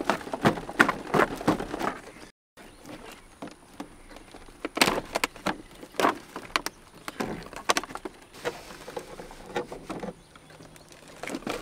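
Cardboard box and plastic packaging being opened and handled: scattered rustles, crinkles and light taps, with a short break a little over two seconds in.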